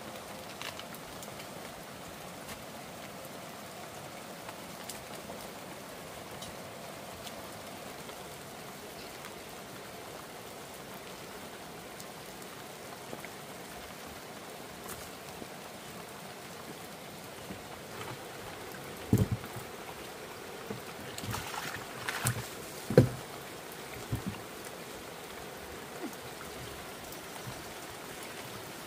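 Steady rain falling, heard as an even hiss. In the last third comes a short cluster of sharp knocks and thumps.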